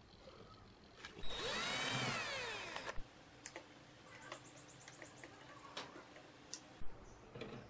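Cordless drill-driver motor whirring for about a second and a half, its pitch rising and then falling as it spins up and runs down. Scattered small clicks and taps follow, including a quick run of ticks.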